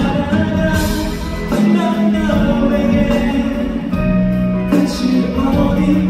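Male singer singing live into a handheld microphone over a pop song's backing music, amplified through a concert sound system.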